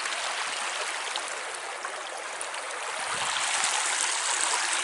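Shallow creek water running over rocks, a steady rushing babble that grows a little louder in the second half.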